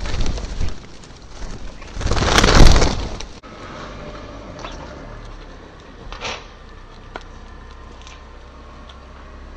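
Common starlings flapping and scuffling at a ground feeder close to the microphone. The loudest part is a rush of wingbeats about two seconds in. After that the sound drops to a quiet background with a few faint ticks.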